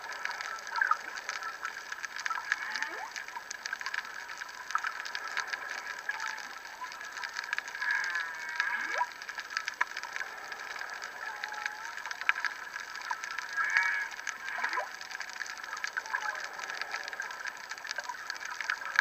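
Humpback whale song heard underwater: rising whoops about every six seconds, with higher moans and warbling notes between them, over a constant crackling.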